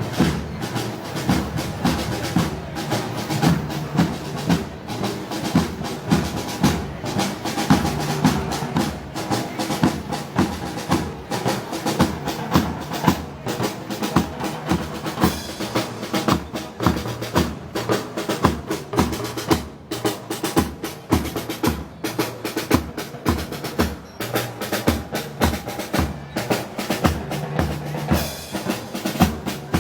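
Moros y Cristianos festival band music, led by drums: snare and bass drum beating a steady, driving rhythm, with sustained pitched instrument notes underneath.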